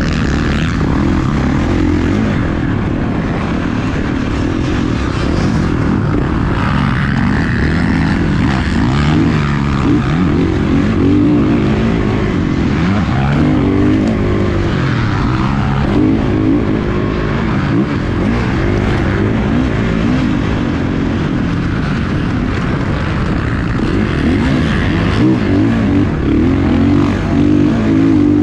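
Motocross dirt bike engine racing under hard throttle, its pitch rising and falling over and over as the rider gets on and off the gas through the track's corners and jumps.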